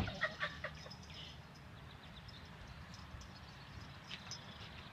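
Faint bird calls over a low, steady background hum, with a short knock right at the start that is the loudest thing.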